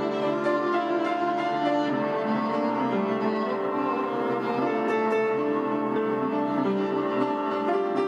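Violin and upright piano playing a duet live, the violin bowed over the piano.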